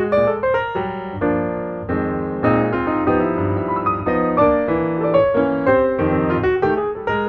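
Background piano music: notes and chords played in a flowing line, several new notes a second.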